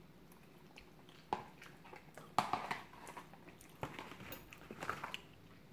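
Someone eating a mouthful of spicy tuna bibim udon close to the microphone: chewing and mouth noises in scattered short bursts, the loudest about two and a half seconds in.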